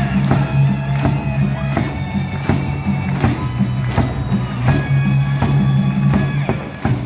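Baseball cheering music over the stadium loudspeakers: a steady drum beat about once every three-quarters of a second over a sustained low drone and a held, changing melody.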